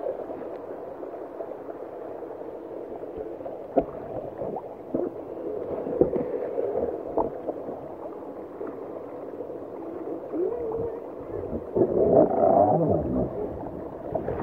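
Bare skin rubbing and squeaking against a water slide on a slow ride down, with scattered small knocks. The squeaking is loudest about twelve seconds in.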